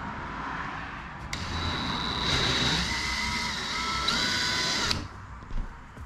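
Cordless drill boring a 1/2-inch hole through a plastic kayak hull. The motor runs with a steady whine for about four seconds, steps up in pitch near the end, then stops.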